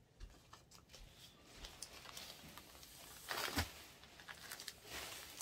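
Plastic laundry-product bag rustling as it is handled over a plastic tub, with scattered small clicks and a louder rustle and knock about three and a half seconds in.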